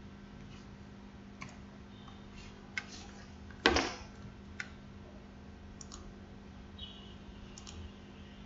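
Faint computer mouse clicks, about half a dozen, scattered irregularly over a low steady hum. One click about three and a half seconds in is louder than the rest.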